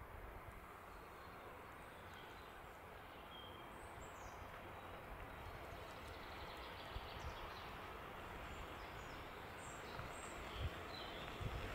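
Distant freight train hauled by an EU07 electric locomotive approaching: a faint low rumble that slowly grows louder. A few short bird chirps sound over it.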